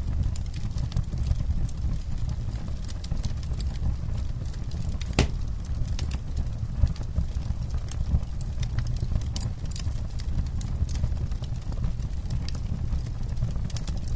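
Campfire burning: irregular sharp crackles and pops over a steady low rumble, with one louder pop about five seconds in.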